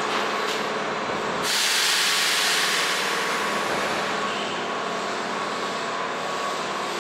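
Keihan Railway electric train standing at a platform, with a steady hum underneath. About one and a half seconds in, compressed air from its air brake system is let out in a sudden loud hiss that slowly fades.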